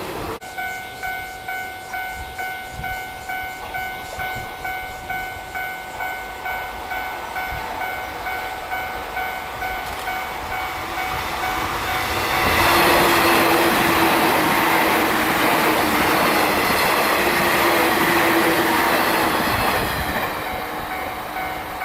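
Japanese railway level crossing warning bell ringing in an even, repeated ding at about one and a half strikes a second. About twelve seconds in, a train passes and its loud running noise of wheels on rails covers the bell for most of the rest.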